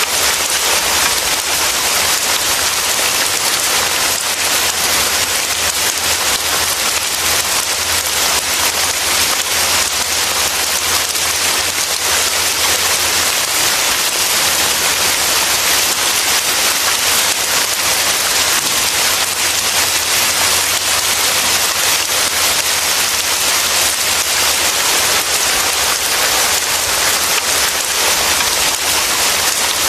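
Heavy rain falling steadily, an even, unbroken hiss of countless drops with no thunder.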